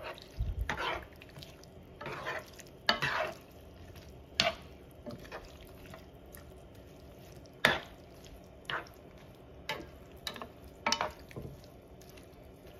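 Metal spoon stirring and tossing vegetables in a large frying pan, making irregular brief scrapes and clinks against the pan, about a dozen of them.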